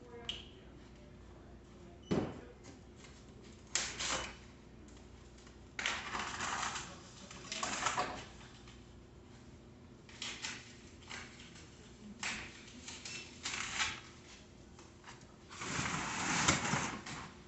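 Intermittent handling noise from assembling a bicycle: a sharp knock about two seconds in, then several short rattling, scraping bursts of parts and tools being worked, the longest and loudest near the end.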